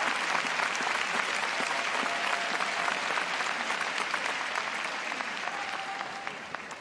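Large crowd applauding in an ice arena, dense clapping that fades near the end.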